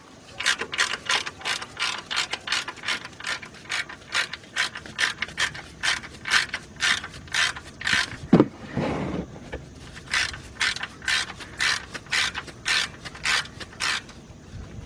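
Hand ratchet wrench clicking in quick, even strokes, about three a second, as it backs out the oil drain plug; the clicking stops near the end. A short low falling sound comes a little after the middle.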